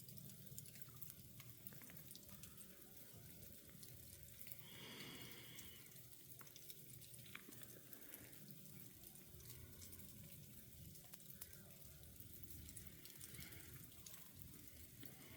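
Faint patter of falling sleet, a soft hiss dotted with many tiny ticks of pellets landing, with a brief louder swell of hiss about five seconds in.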